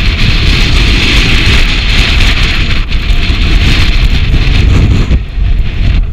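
Strong wind buffeting the camera's microphone: a loud, gusty rumble with hiss, easing briefly about five seconds in.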